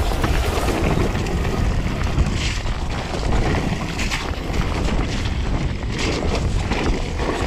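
Wind buffeting the microphone over the rush of mountain bike tyres on a wet trail, with a few short louder rushes.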